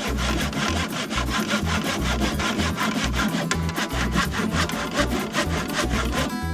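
Hand saw cutting through wood in rapid, even back-and-forth strokes, stopping shortly before the end, over background music.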